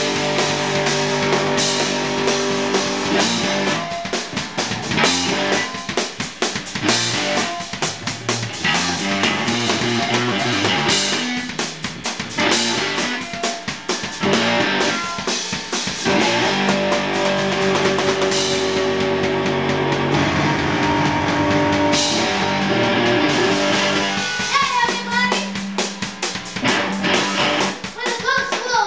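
Rock band playing live: electric guitar with a drum kit, drums struck in a fast, continuous beat under held guitar notes.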